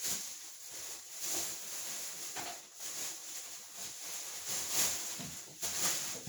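Irregular rustling and handling noise, swelling and fading in uneven surges, as newly bought rugs are picked up and unfolded.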